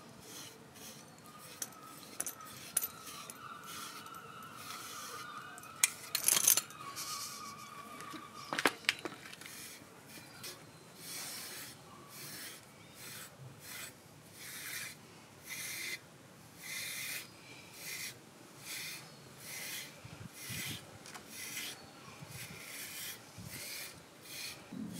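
Deshedding brush raking through a husky-malamute's thick coat in repeated rasping strokes, about one a second in the second half. Two sharp clicks sound about six and nine seconds in.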